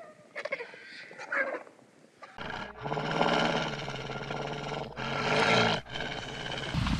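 Wild animal calls: a few thin cries in the first second and a half, then a long, harsh, roar-like growl that lasts about four seconds with a couple of brief breaks.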